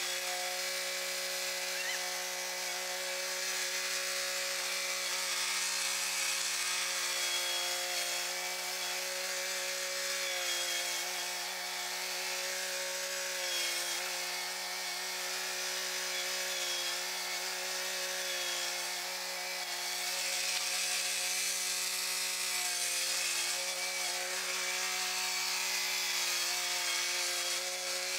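Kubota compact tractor's diesel engine running steadily under load, its note sagging briefly a few times as the front-loader bucket pushes and levels dirt.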